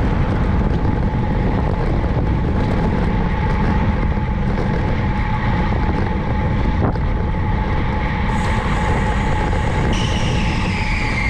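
Wind rushing over the microphone with the road noise of a bicycle in motion, loud and steady. Near the end a high whine starts and falls in pitch.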